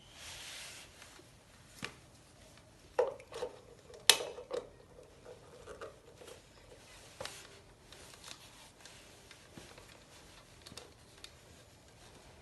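Scattered sharp clicks and knocks from a 3-litre water fountain being handled, over a faint steady background. A short hiss comes at the start, and the loudest knocks, with a brief ring after them, fall about three and four seconds in.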